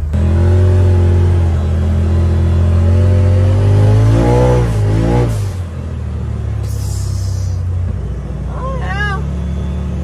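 Side-by-side UTV engine running under way, its note rising gently as it pulls, then easing off and dropping in level about halfway through.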